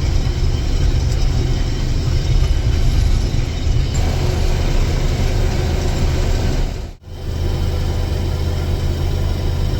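Combine harvester running steadily while harvesting soybeans: a loud, steady low engine drone. It cuts out for a split second about seven seconds in.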